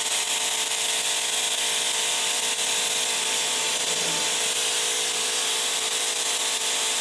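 DeWalt DCPW550 20 V cordless pressure washer spraying steadily through its wide 40-degree fan nozzle: an even hiss of water with a faint steady hum of the pump underneath.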